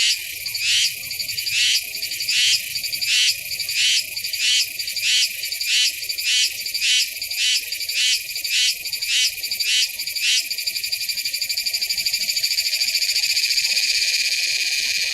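Cicada calling loudly: a high buzz broken for about ten seconds by a run of rhythmic pulses that speed up, from under one to about two a second, then settling into a steady drone.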